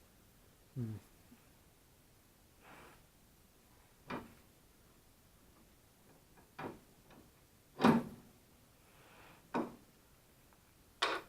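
A few scattered, separate knocks and clunks of metal steering parts and tools being handled during tie rod and center link fitting, with quiet between them; the loudest clunk comes about 8 seconds in.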